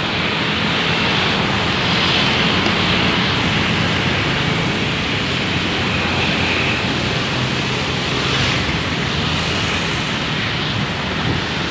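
Steady city street traffic noise, with motorbike engines running past and a low constant hum.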